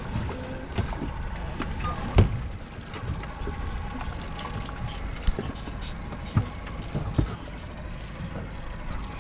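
Steady low rumble of wind and water around a small offshore fishing boat drifting, with a few sharp knocks on the boat, the loudest about two seconds in.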